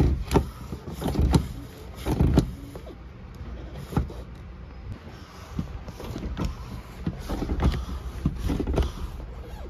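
Car brake pedal being pumped by foot while the brakes are bled, a series of dull thumps, about one a second at first, then a quicker run of strokes near the end.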